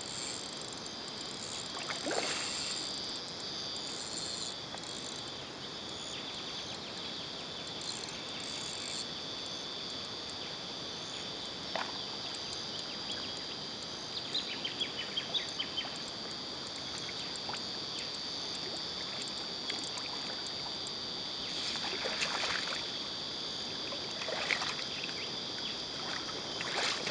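Steady high-pitched drone of insects over the flowing river, broken by a few brief splashes in the shallow water as a hooked carp is played and drawn into a landing net near the end.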